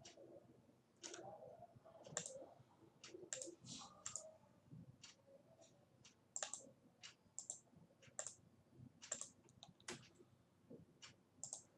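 Faint, irregular clicking of a computer mouse and keyboard, a couple of dozen sharp clicks spread unevenly, some close together.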